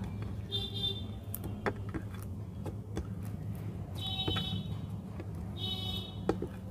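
Clay slime being kneaded and folded by hand: scattered sticky clicks and pops, with three short high-pitched squeaks, about half a second in, at four seconds and near six seconds.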